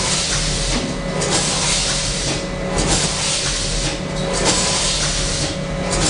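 Automatic doypack pouch-packing machine running: a steady mechanical hum with repeated hisses of air about every second or so as its pneumatic mechanisms cycle.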